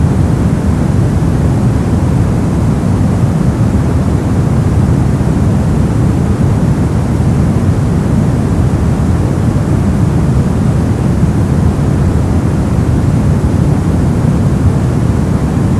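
Steady brown noise: a deep, even rumbling hiss, strongest in the lows and fading toward the highs, with no changes or events.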